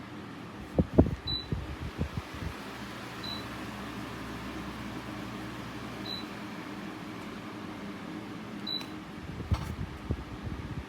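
Comfort Zone CZ16WR wall-mount fan running steadily, with four short high beeps a few seconds apart, the fan's signal for button presses on its remote. Knocks and bumps of handling about a second in and again near the end.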